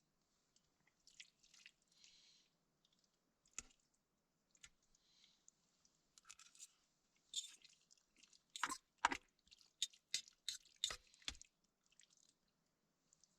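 A person eating pasta close to the microphone: faint, irregular chewing and small sharp clicks, which get louder and come thicker from about two-thirds of the way through.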